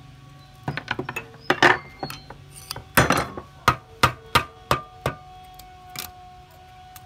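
Mallet knocking on the rusted steel valve cover of a Honda GX160 engine to break it loose, in a quick, irregular run of sharp knocks that thins out toward the end.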